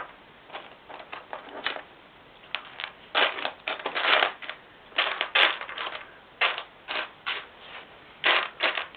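Loose plastic LEGO pieces clattering and rattling in irregular bursts as hands rummage through a pile, searching for a missing piece.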